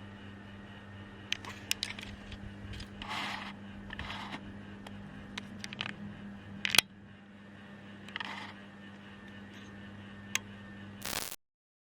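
Sekai DFN 1202 12-inch table fan's electric motor running with a steady low mains hum, under scattered clicks and short scraping handling noises. A sharp click comes a little under seven seconds in, after which the fan runs a bit quieter; the sound cuts off suddenly near the end.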